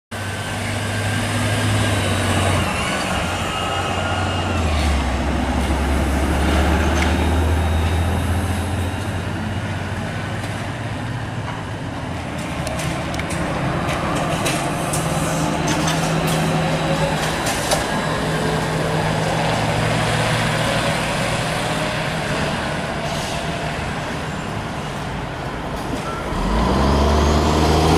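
Street traffic with trolleybuses and a truck: heavy vehicles running with a steady low engine hum, and a pitch rising near the end as a vehicle pulls away.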